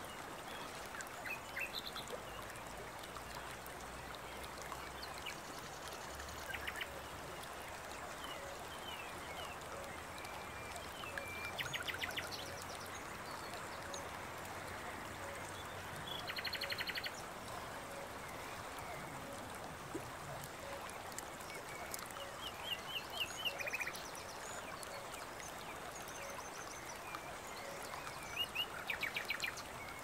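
Forest ambience: a steady running stream with birds calling every few seconds, in short rapid trills and chirps.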